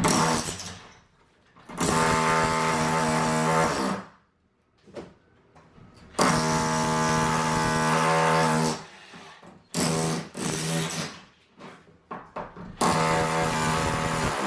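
A power tool running in bursts of two to three seconds with short pauses between them, holding one steady pitch while it runs. It is most likely breaking out bathroom tile in a demolition.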